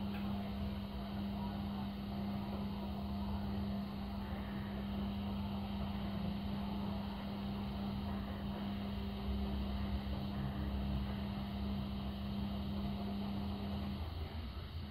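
A steady low hum over a low rumble; the hum cuts off shortly before the end.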